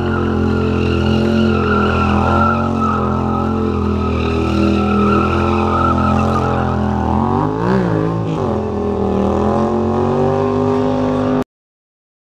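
Motorcycle engine held at steady high revs with tyre-squeal noise, the revs rising and falling briefly about eight seconds in. The sound cuts off abruptly near the end.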